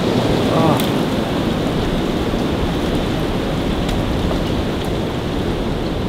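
Dense, steady rustling and crunching of brush and dry leaves underfoot while pushing through thorny undergrowth, with a few sharp snaps of twigs.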